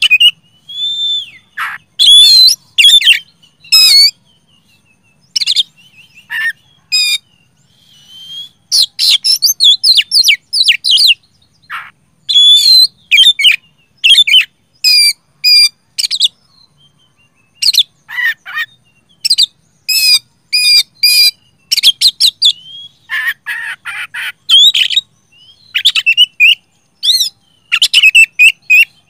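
Male Oriental magpie-robin singing loudly: short phrases of rapid, varied notes, about a second or less each, one after another with brief pauses between.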